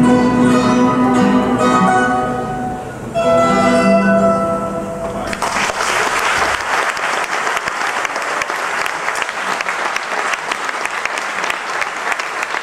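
A plucked-string ensemble of Portuguese guitars, mandolins and guitars plays its closing chords, ending on a final held chord. About five seconds in, audience applause breaks out and carries on steadily.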